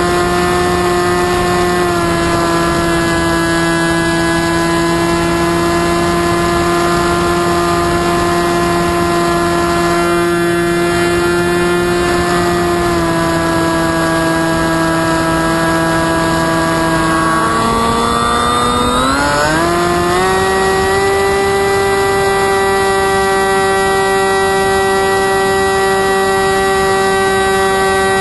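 The FPV flying wing's motor and propeller, heard from the onboard camera, running as a steady droning whine with some wind rush. About 17 seconds in the pitch falls as the throttle is eased back, then rises again over about two seconds to a slightly higher steady note.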